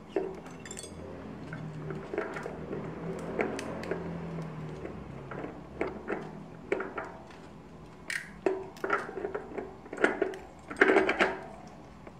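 Steel sprockets and spacers of a Shimano 9-speed cassette clinking against each other and the hub as they are slid onto a bicycle's rear wheel: a scatter of light metallic clinks and taps, with a louder cluster near the end.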